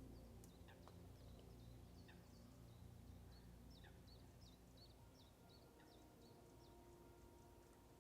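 Faint songbird calls: a run of short, high, down-slurred chirps, coming thickest in the middle, over a low outdoor background rumble.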